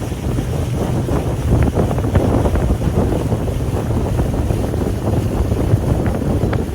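Pontoon boat cruising: wind buffeting the microphone over water rushing and splashing along the hull.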